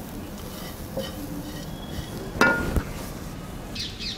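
A metal cooking pan clinks once about two and a half seconds in, a short ringing knock; otherwise only a faint, steady background noise.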